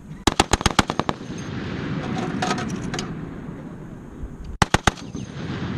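Machine gun firing two short automatic bursts: about nine rapid shots at roughly ten a second, then a burst of about four shots near the end.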